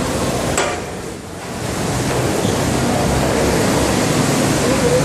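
Heavy rain, a steady loud hiss, with a short click about half a second in and a brief lull about a second in.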